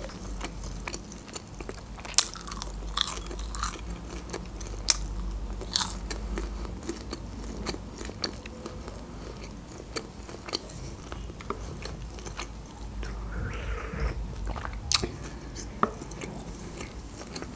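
A person chewing food close to the microphone, with scattered sharp wet mouth clicks and small crunches.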